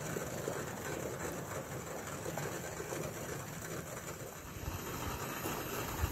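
Maple sap nearly boiled down to syrup, bubbling at a rolling boil in a steel pot on a portable butane camp stove, over the burner's steady hiss; the syrup sits at about 217–220°F, close to done. A brief bump near the end.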